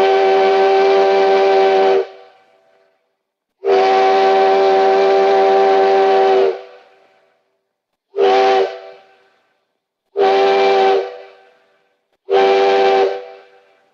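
Steam locomotive chime whistle sounding a chord of several steady pitches in separate blasts. A long blast ends early, a second long blast follows, then three shorter blasts, each cut off sharply and trailing away.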